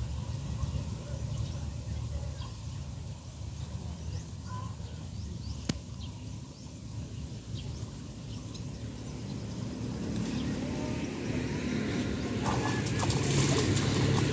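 Low wind rumble on the microphone with a few faint chirps and one sharp click about halfway through. Near the end, water splashing as a hooked fish, a buwan-buwan (Indo-Pacific tarpon), is reeled in and fights at the surface by the bank.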